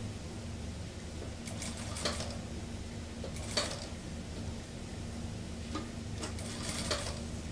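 Industrial sewing machine stitching in three short bursts of a few stitches each, over a steady low hum.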